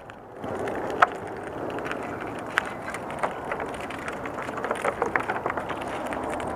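A small jack smelt hauled up on a light spinning rod and landed on a wooden pier: scattered sharp clicks and taps, the sharpest about a second in and a cluster a little before the end, over a steady wash of wind and water.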